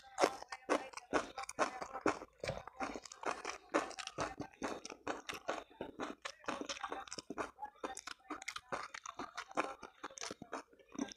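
Close-miked mouth sounds of a person eating by hand: biting, then continuous chewing and crunching, with many quick crisp clicks.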